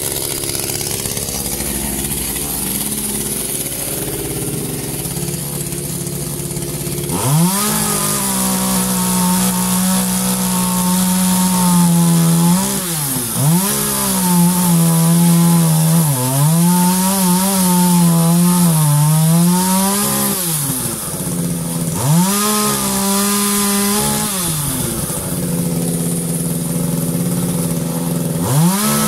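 ECHO two-stroke chainsaw running at a fast idle, its idle set so high that the chain keeps turning. About seven seconds in it is revved to full throttle to cut wood, and its pitch sags and recovers as the chain bites. It drops back to idle twice, a little after twenty and again around twenty-five seconds in, revving up again between and near the end.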